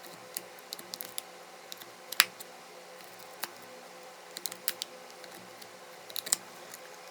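An iPod Classic's metal-and-plastic case being pried open: scattered sharp clicks and snaps as the retaining clips give, the loudest about two seconds in and another cluster near the end.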